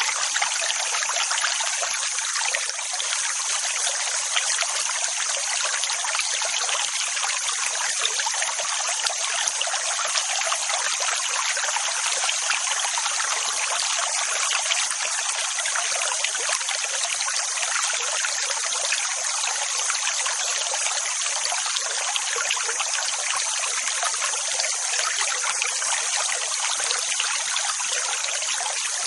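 Steady rushing water: an even hiss that holds the same level throughout, with no rise and fall of breaking waves.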